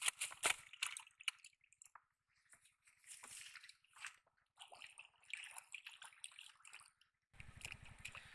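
Wet splashes and squelches, loudest in the first second or so, from a freshly caught catfish being handled and put into a bucket of water. Softer scattered splashing and rustling follow, and a steady low hum starts near the end.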